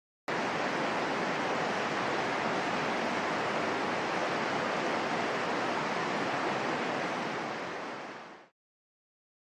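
Steady rush of river water, an even unbroken noise that cuts in just after the start and fades out near the end.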